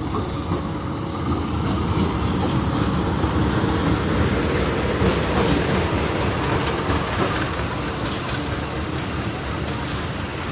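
Passenger train running past, its wheels clattering over the rail joints with a steady rumble that builds over the first second or two.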